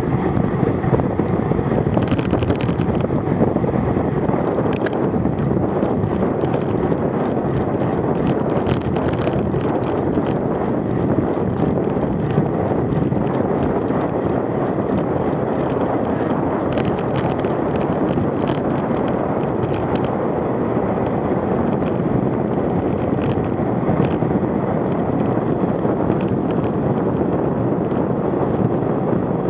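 Steady wind rush buffeting a bike-mounted action camera's microphone while riding a road bicycle, with scattered light clicks and rattles throughout.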